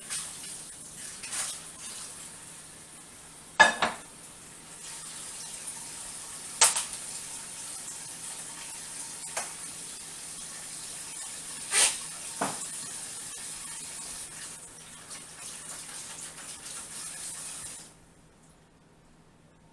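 Kitchen tap running steadily into the sink, with dishes or utensils clattering a few times; the water shuts off suddenly near the end.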